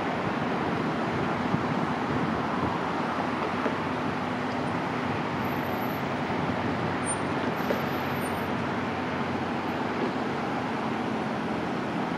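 Steady rumble of distant traffic noise with no distinct event standing out.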